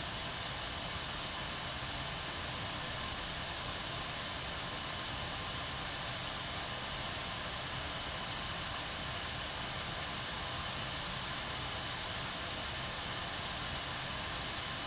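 Kettle at a steady boil: an even, unchanging rushing hiss of bubbling water and steam.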